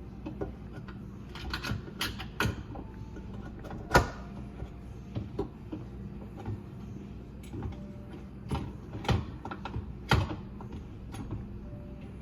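Scattered clunks and knocks from handling a garbage disposal unit and trying to turn its grinding plate, which is jammed by aquarium rocks lodged inside; one sharp knock about four seconds in is the loudest.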